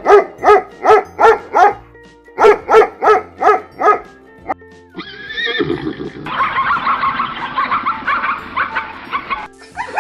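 A dog barking repeatedly, about three barks a second in two runs with a short pause between them. From about halfway through, a zebra gives a long braying call. Soft background music plays underneath.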